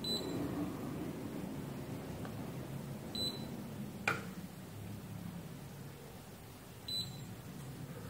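Digital multimeter in diode-test mode giving three short high beeps, about three seconds apart, as its probes are set on the pins of an MP2233 switching-regulator IC. There is one sharp click about four seconds in, over a low steady hum.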